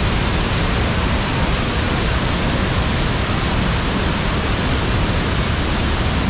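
Iguazu Falls' cascades pouring: a loud, steady rush of falling water with no breaks or changes.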